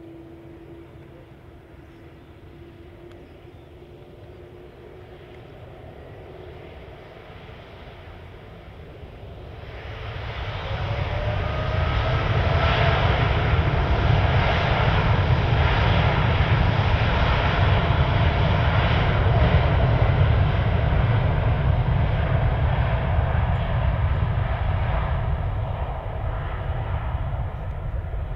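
Boeing 787-9 Dreamliner's twin GE GEnx-1B turbofans spooling up to takeoff thrust for the takeoff roll. A faint steady whine at first gives way, about ten seconds in, to a loud, steady rumble with rising fan tones. The sound eases slightly near the end.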